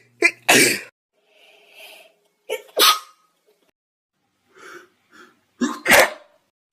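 A person sneezing three times in a row, about two and a half seconds apart. Each sneeze is a sudden loud burst with a short sharp catch of breath just before it, and softer breathy intakes come between them.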